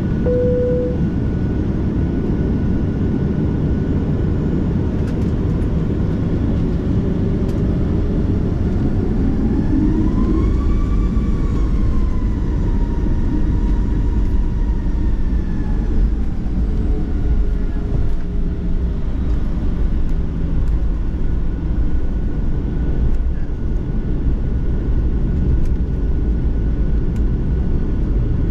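Steady rumble of a Boeing 737-800 jet airliner heard from inside the cabin, with a constant high hum over it. About eight seconds in, a whine rises in pitch, then slowly falls away over several seconds; a brief tone sounds right at the start.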